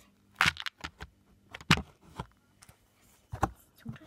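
Handling noise from plastic toys: about half a dozen short, sharp clicks and scrapes as a plastic toy horse is knocked and rubbed against a plastic trough.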